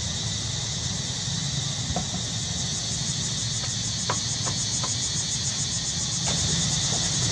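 A steady, high-pitched insect chorus with a fast pulsing shimmer, over a low steady hum, with a few faint short chirps scattered through it.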